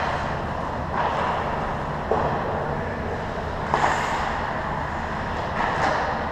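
Indoor ice rink during hockey play: a steady hum and noise of the arena, with a few short, faint knocks from play far down the ice about one, two and four seconds in.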